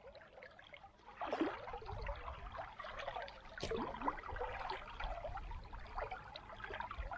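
Shallow river current trickling and burbling, louder from about a second in, with a single sharp click about three and a half seconds in.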